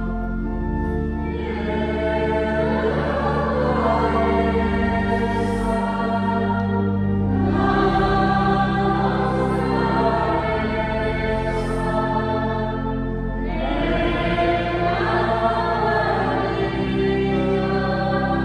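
Offertory hymn at Mass: a choir singing a slow hymn over sustained, held accompanying chords, in phrases several seconds long.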